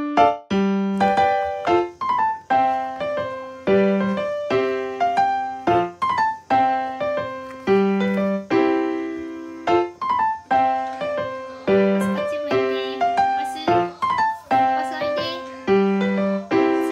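Background music: a light keyboard tune of separate, quickly decaying piano-like notes over a low note pattern that repeats about every two seconds.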